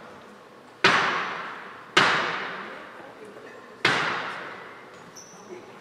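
Basketball bouncing three times on a gym floor, slowly and unevenly spaced. Each bounce is a sharp smack followed by a long echo in the large hall.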